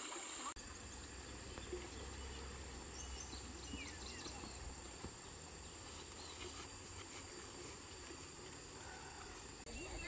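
Steady high-pitched insect chorus from the surrounding fields and vegetation, with a low rumble underneath for the first half.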